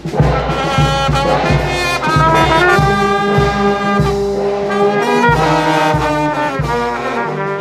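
Brass band playing a melody, with a trumpet and trombone holding and changing notes over a steady low beat.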